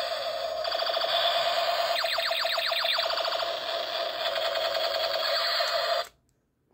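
Battery-powered light-up toy gun playing its electronic firing sound effect: a fast rattling buzz over one steady high tone, with a run of quick warbling sweeps about two seconds in. It cuts off suddenly about six seconds in.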